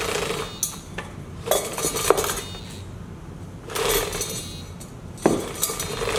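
A bicycle chain rattling over a derailleur's pulleys, with a small tin cup hanging on the chain clinking against it: metal clatter in four bursts about every one and a half to two seconds, with sharp clinks among them.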